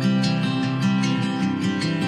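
Background music led by a strummed acoustic guitar, with a steady rhythm.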